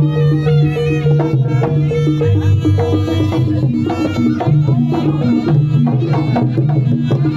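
Traditional East Javanese jaranan gamelan music accompanying a barong kucingan dance: steady repeating low gong-chime notes with drum strokes and a wavering melody line above.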